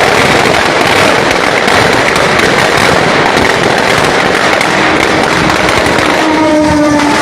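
Firecrackers going off in a dense, continuous crackle. Near the end a steady horn tone comes in over them, the horn of the approaching train.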